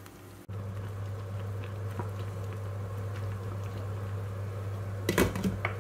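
Salted water at the boil with eggplant pieces in a stainless steel pot, bubbling steadily over a low, constant hum. Near the end a metal spoon clinks against the pot a few times.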